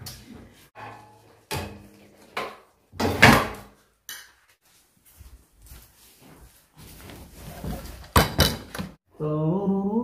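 Scattered knocks and clatters of kitchenware as soup is ladled from a pot into a plate and the plate is handled. The loudest knock comes about three seconds in and another near the end, with quiet gaps between.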